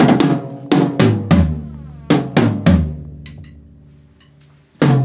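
Acoustic drum kit struck in short groups of hits, each drum ringing out with a pitched tone. A quieter stretch of light taps comes in the middle, and the heavy hits start again near the end.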